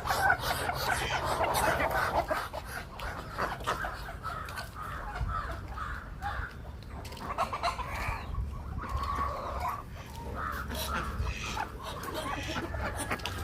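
Chickens clucking, a string of short repeated calls.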